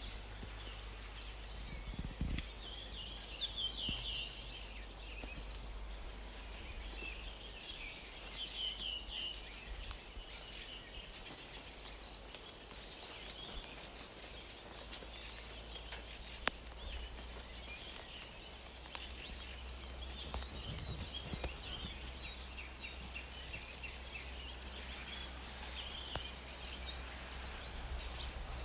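Wild birds chirping and trilling, several overlapping short calls, over a faint low rumble of outdoor background noise.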